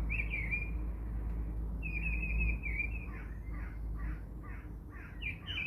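Birds calling: warbling chirps, then a quick run of about six short, harsh calls roughly half a second apart, over a low steady hum.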